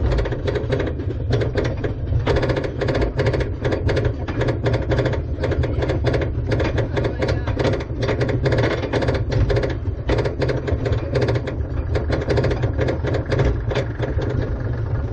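E&F Miler Hi-Miler roller coaster train climbing its chain lift hill: the lift chain runs under the car with a steady low rumble and a rapid, even clicking from the anti-rollback ratchet.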